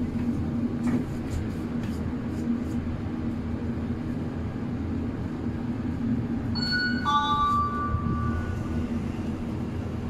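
Hitachi YPVF lift car travelling with a steady low hum and rumble. About six and a half seconds in, a two-note arrival chime sounds as the car reaches its floor.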